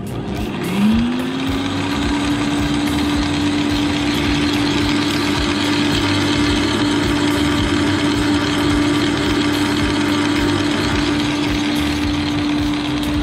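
Ryobi RSH3045U 3000 W electric milling-drum garden shredder starting up: the motor's tone rises over about a second as it comes up to speed, then it runs steadily and empty, with nothing fed in.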